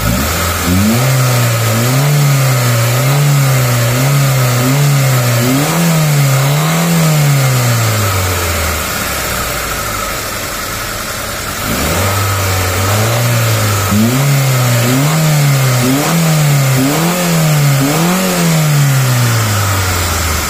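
Mitsubishi Lancer's 1.5-litre four-cylinder engine revved during an exhaust back-pressure test, with a pressure gauge fitted in the oxygen sensor port. The revs are blipped about once a second in two runs and drop back between them, about halfway through.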